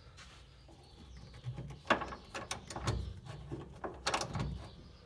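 Clicks and clunks of metal on metal as a classic Mopar upper control arm is shifted and its eccentric alignment adjuster turned back by hand and wrench. There are a handful of separate sharp knocks, starting about two seconds in and roughly a second apart.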